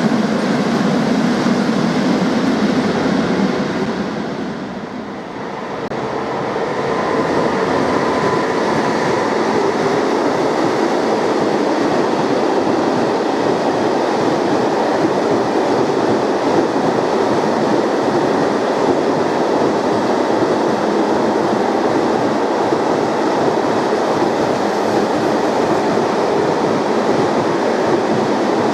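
Freight train wagons rolling past on the rails: a steady rumble and rattle of wheels on track, which dips briefly about five seconds in and then picks up again as more wagons pass.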